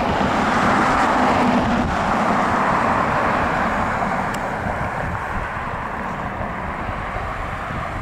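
Road traffic passing: tyre and engine noise that swells over the first few seconds and then eases off.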